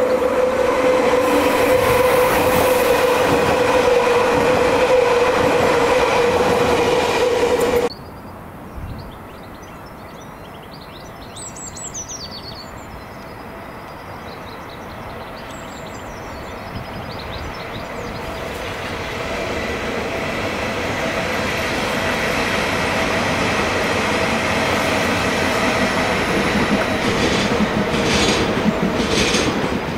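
Stadler FLIRT electric multiple units (VR Class Sm5) running on the line. The first passes loudly with a steady whine and rail noise until it drops away suddenly about eight seconds in. Through a quieter stretch with birds chirping, another FLIRT approaches, its sound growing slowly louder toward the end.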